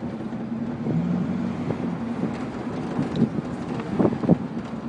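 Pickup truck driving, heard from its open bed: steady engine and road noise with wind rushing over the microphone. There are a few short knocks about four seconds in.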